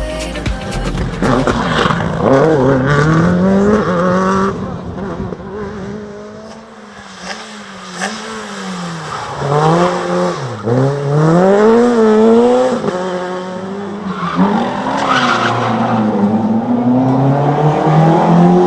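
Rally car engines at high revs on a tarmac stage, pitch climbing hard and dropping back at each gear change, with tyres squealing as a car slides through a junction. Near the end a Talbot Sunbeam Lotus accelerates away, its engine note climbing.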